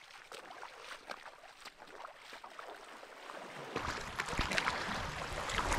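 Feet wading through shallow seawater, with splashing and sloshing that is faint at first and grows louder about two-thirds of the way in.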